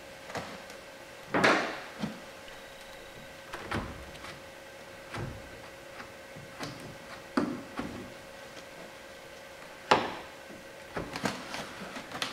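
Scattered knocks, clicks and scuffs from a stainless vent visor and its clips being worked into a truck door's window channel and weather stripping. The loudest knock comes about ten seconds in, with a short scraping sound near the start. A faint steady hum runs underneath.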